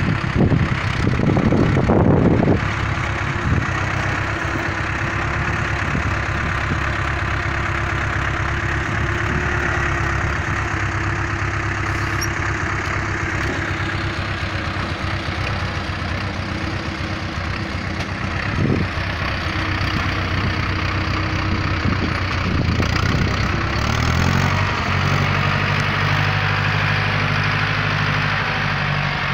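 Ostrówek backhoe loader's diesel engine running steadily. About 24 seconds in, its revs drop and it settles into a lower, even idle.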